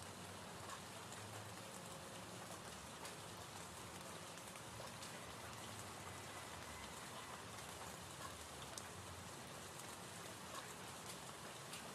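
Gentle rain falling: a soft, steady patter with scattered faint drop ticks.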